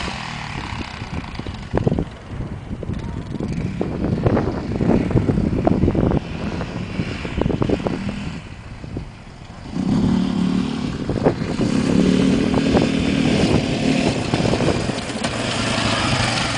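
Sport ATV (quad) engine running as it rides across sand. The engine note is rough and uneven at first, dips briefly, then grows louder and steadier from about ten seconds in as the quad comes close.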